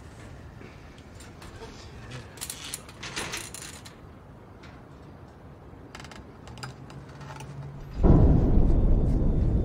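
Faint metallic clicking and rattling, then a sudden loud low rumble about eight seconds in that keeps going.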